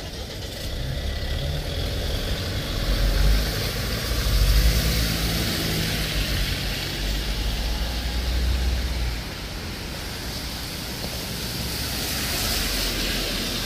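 Car traffic passing on a wet road: a low engine and tyre rumble swells about three seconds in and drops away after about nine seconds, over a steady hiss of tyres on wet asphalt.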